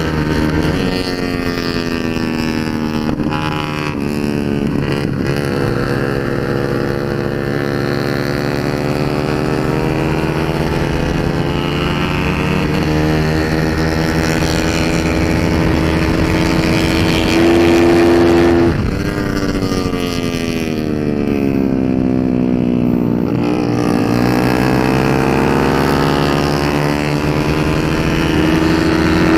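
Big-bore Yamaha Mio 4V 230 cc scooter engine running hard at track speed, heard from on board. Its pitch holds fairly steady, then dips and climbs back a few times, most deeply about nineteen seconds in as it slows and then accelerates again.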